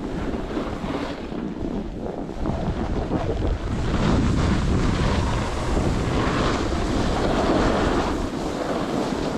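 Wind buffeting the microphone: a loud rushing noise that swells about four seconds in and stays up.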